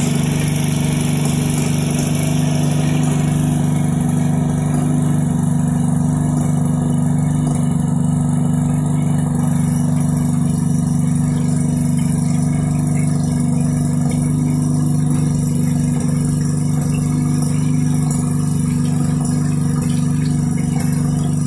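Maytag Model 72D two-stroke gasoline engine running at a steady speed as it drives the wringer washer. It runs smoothly and evenly, in good working order.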